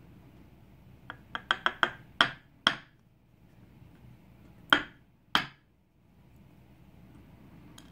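A disassembled dimple lock being knocked to free its stuck core and pins: seven sharp taps in quick succession, then two more a couple of seconds later.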